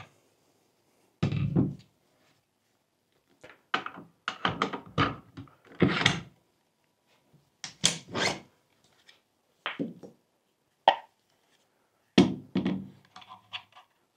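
Tools and parts being handled on a wooden workbench: a series of irregular thunks and knocks in about six separate groups, with short pauses between, and one brief clink a little before the end.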